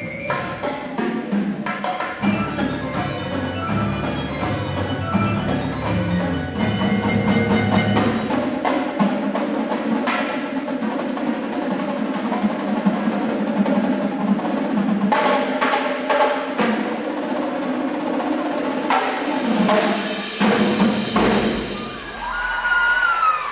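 Indoor percussion ensemble playing: marimbas and other mallet keyboards over drums and wood block, with loud accented hits from the whole ensemble several times in the second half.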